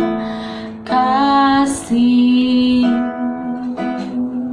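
A woman's voice singing a slow worship song in long held notes, accompanied by guitar.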